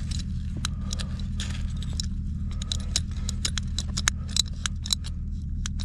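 Hand pipe cutter being squeezed through a plastic water line, making a string of short, sharp, irregular clicks. Under it runs the steady low drone of an idling engine.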